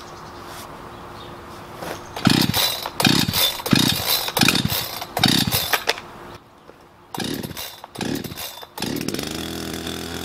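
Chainsaw being pull-started: a run of short rasping cord pulls, a brief pause, a few more pulls, then near the end the engine catches and settles into a steady idle.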